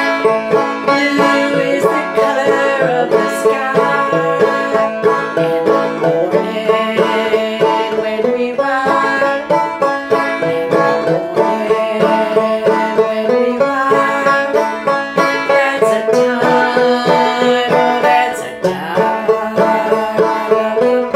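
Five-string banjo played clawhammer style in standard open G tuning: a steady, rhythmic instrumental passage of plucked melody notes and strums.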